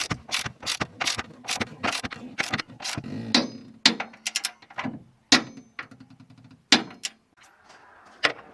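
Ratchet wrench with a socket clicking in steady strokes, about three a second, as it tightens hitch mounting bolts, then a faster run of fine ticks about six seconds in and a few sharper clacks.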